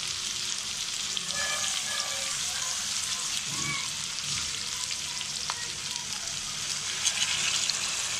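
Hilsa fish and spiced onions sizzling steadily in mustard oil on a hot tawa. About seven seconds in, the sizzle flares brighter and louder as a little water is poured into the pan.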